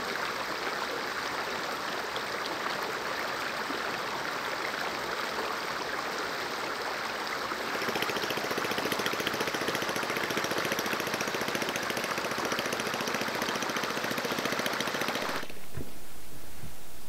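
A steady rush of water, then from about eight seconds in a boat engine's rapid, even knocking over the water noise. Near the end it cuts abruptly to a duller low rumble.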